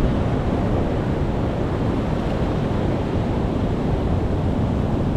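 Pacific Ocean surf breaking on rocks: a steady, deep wash of waves with no single distinct crash.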